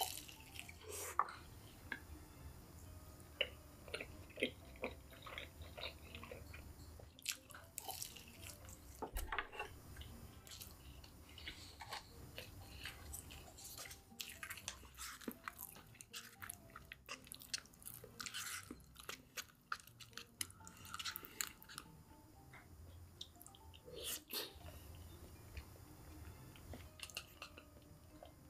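Close-up chewing of crispy KFC fried chicken, with irregular sharp crackles of the crunchy breading and wet mouth sounds.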